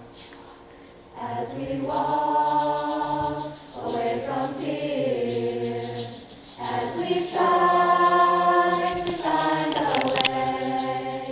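High school choir singing a slow song in long held phrases, with short breaks between phrases. A sharp click sounds near the end.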